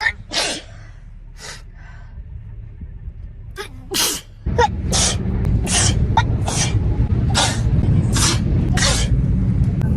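A young woman sneezing over and over, about a dozen wet allergy sneezes in quick succession, half a second to a second apart. From about halfway in, a steady low hum runs underneath.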